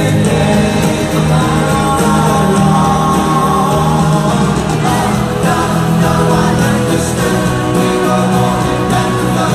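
Live pop band music with wordless singing over long held chords.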